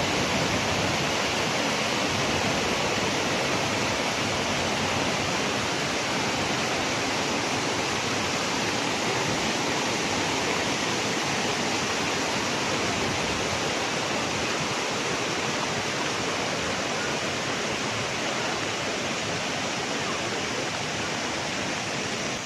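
Rain-swollen stream in spate, its water rushing in a loud, steady noise.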